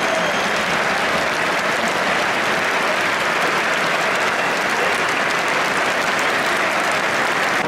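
Large football stadium crowd applauding: dense, steady clapping from thousands of fans.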